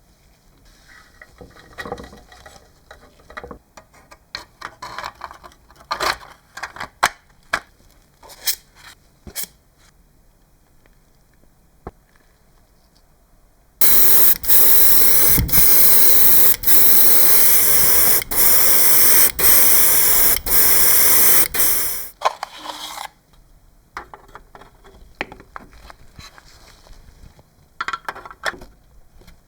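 Loud spraying hiss in a run of short passes broken by brief gaps, lasting about eight seconds from about fourteen seconds in, with scattered knocks and clicks of handling before and after it.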